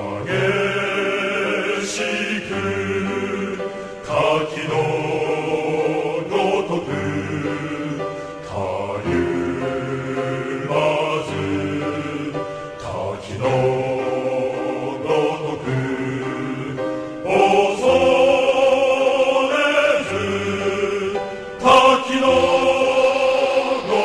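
Men's chorus singing a slow Japanese song in long held phrases, each a few seconds long.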